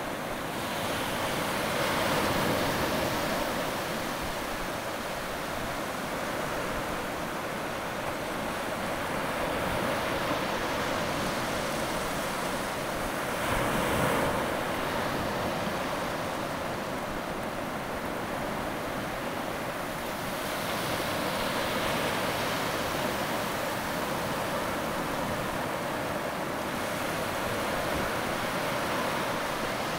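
Shallow surf washing over sand: a steady rush of water that swells and eases every few seconds.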